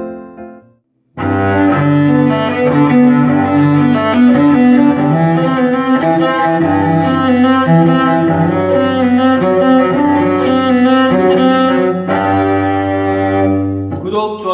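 Cello played with a bow: a melody over a steady low note, starting about a second in after the tail of other music fades out.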